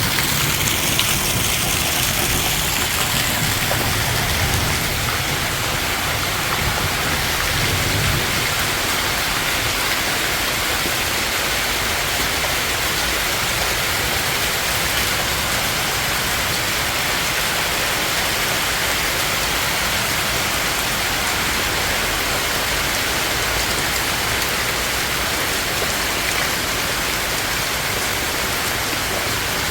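Heavy rain pouring down steadily, a dense even hiss. A low rumble fades away over the first eight seconds or so.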